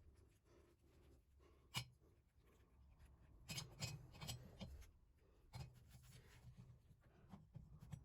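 Faint scratching and rubbing strokes from small hand work, with one sharp click about two seconds in and a short run of scrapes around the middle.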